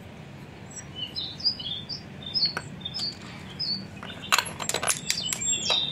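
Small birds chirping in short, high, repeated calls. In the second half come several sharp metallic clinks of small steel toy utensils being knocked together and set down.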